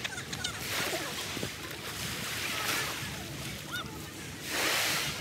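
Small waves washing onto a sandy shore, the surf swelling and falling back about every two seconds, the loudest wash near the end.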